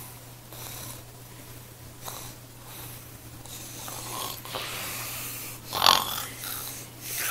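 A girl's pretend snoring: a string of breathy, rasping snores about a second apart, with a louder snort about six seconds in.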